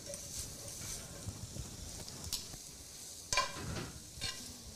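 Sautéed potatoes, cabbage and apples sizzling in a skillet while a metal utensil stirs them, with a few short scrapes against the pan about two-thirds of the way through.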